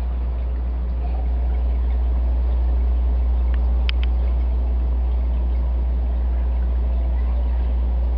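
Steady low hum of aquarium equipment such as a filter or pump motor, with two short sharp ticks about four seconds in.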